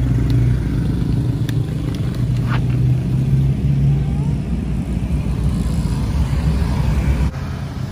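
A motor vehicle's engine running steadily, a low drone that stops abruptly near the end.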